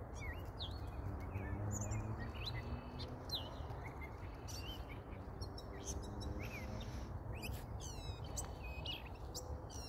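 Wild songbirds chirping and calling, many short chirps and quick whistles from several birds, over a steady low rumble.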